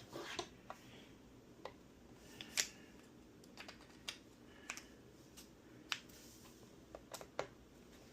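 Light, irregular clicks and taps of small parts being handled: the guitar's plastic back plate and its small screws being fitted against the body, about a dozen sharp ticks with no steady rhythm.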